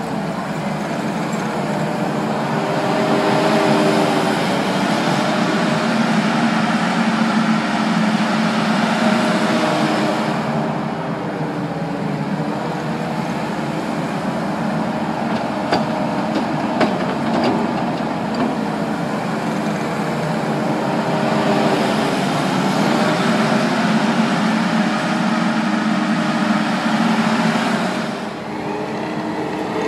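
Kubota SVL75 compact track loader's diesel engine running hard under hydraulic load, its pitch rising and falling several times as it dumps the bucket, drives and digs, with some clatter from the machine.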